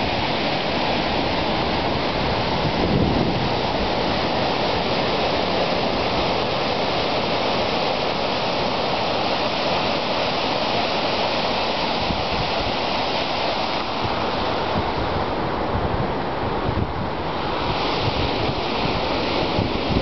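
Ocean surf breaking and washing over the rocks at the foot of a sea cliff, a steady rush of churning water.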